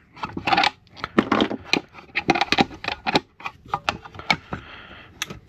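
A run of irregular sharp clicks and light metallic clatter, like small metal parts and tools being handled on a bench.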